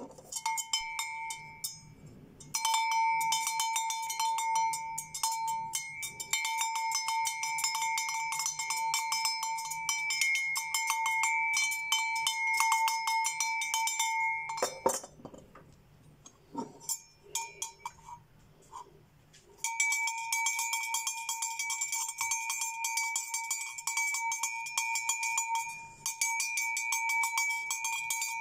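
Two small metal cowbell-type hunting-dog bells shaken one after the other, each ringing with a rapid run of clapper strikes. Midway the ringing stops for a few seconds with only a few knocks while one bell is set down and the other picked up.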